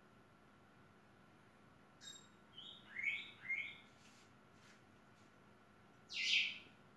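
A few short, high chirps sweeping up in pitch about two to four seconds in, then one louder, harsher chirp near the end.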